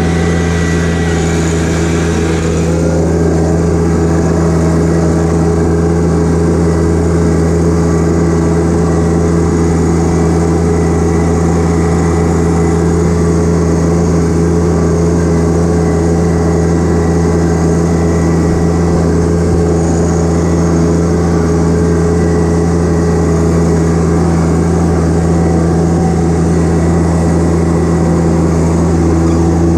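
John Deere 1025R compact tractor's three-cylinder diesel engine running steadily at a constant speed while the tractor drives. A higher hiss drops away about three seconds in.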